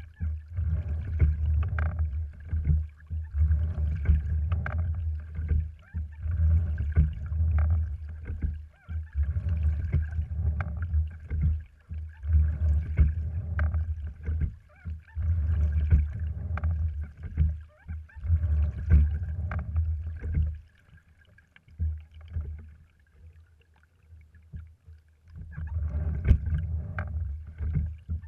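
Sliding-seat rowing wherry under way. Water washes along its cloth-covered cedar hull with a low rumble, surging roughly every three seconds with the oar strokes, along with scattered knocks from the boat's fittings. The rumble dies away to near quiet for about four seconds near the end, then the rhythmic surges resume.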